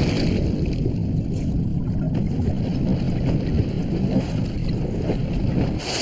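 Muffled underwater rush and bubbling of a swimmer stroking through a pool, heard from below the surface. Near the end it gives way to the brighter hiss of splashing water at the surface.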